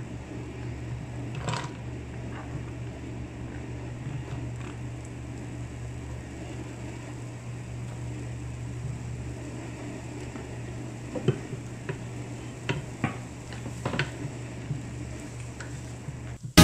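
A silicone spatula scraping chopped onion and garlic off a wooden cutting board into a nonstick cooker pot and stirring, heard as a few light scrapes and taps, most of them in the second half. Under them runs a steady low hum.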